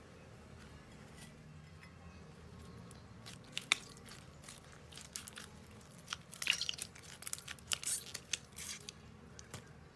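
Slime being squeezed and kneaded by hand, a white fluffy slime pressed into clear pink slime: sticky squelches with quick crackling pops and clicks. These start about a third of the way in and are thickest just past the middle.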